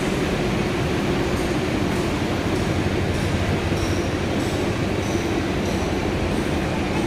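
Indian Railways passenger train's steady running noise: an even rumble with a constant low hum.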